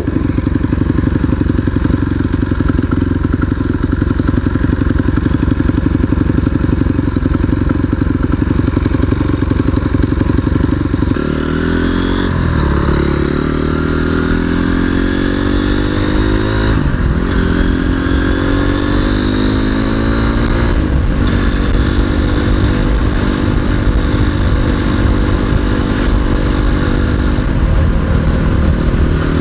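Single-cylinder 250 cc off-road motorcycle engine running while riding. It holds a steady note for about the first ten seconds, then climbs in pitch through the gears, with brief dips at each gear change.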